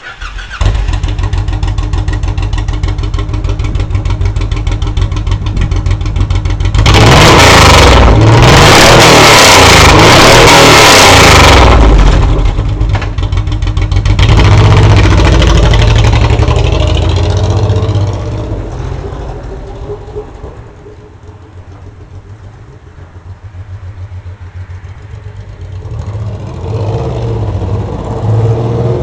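Honda VTX1800C V-twin through a VTXexhaust.com aftermarket exhaust, starting about half a second in and running steadily, then revved hard twice before dropping back and building again near the end. The bike has had its pair valves removed and a Cobra FI2000R fuel controller fitted to stop popping on deceleration.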